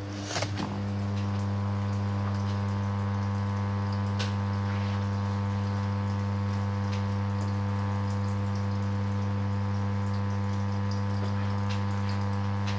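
Washing machine running with a steady low electric hum and water sloshing and trickling inside it, with a few light ticks.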